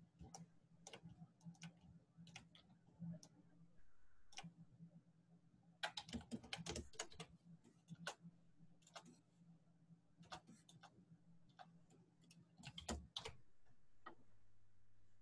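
Quiet, scattered clicks of a computer mouse and keyboard, with a quick run of clicks about six seconds in and another near the end, over a faint steady low hum.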